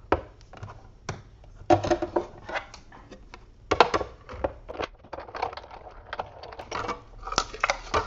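Paper and a metal cutting die handled on a magnetic platform, then the platform cranked through a Big Shot die-cutting machine, giving irregular clicks, knocks and crunching as the die presses through the paper.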